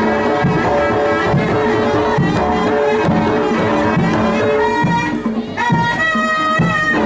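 Jaranan gamelan accompaniment: a steady beat of low drum strokes about twice a second under layered metallic and wind melody lines, with one high note held for about a second near the end.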